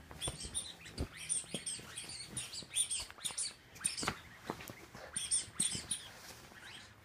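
A puppy tussling with a bed sheet and a toy: fabric rustling and scuffling in irregular bursts, with short high squeaks scattered throughout.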